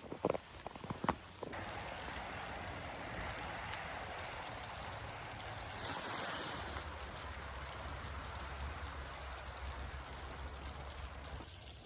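Footsteps crunching in snow for about the first second and a half, then a steady rushing outdoor noise with a low rumble underneath in the second half.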